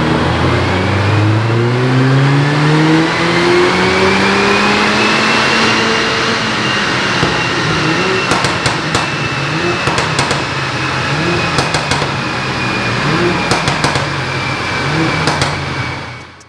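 Mercedes-AMG A45's turbocharged four-cylinder engine under a full-throttle pull on a dyno. The revs climb steadily for about six seconds, then hover high and uneven, with a thin high whine running above them, and the sound cuts off near the end.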